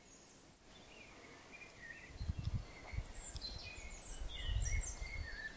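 Small birds chirping and trilling, many short high calls overlapping. Two low rumbling swells, about two seconds in and again near the end, are louder than the birds.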